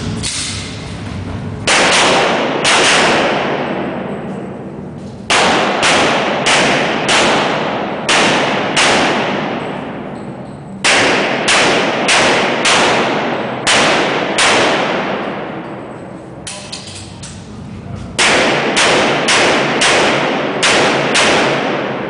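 Handgun shots fired in quick strings of several shots each, about twenty in all, with pauses of a second or two between strings. Each shot rings on with a long echo off the concrete walls of the indoor range.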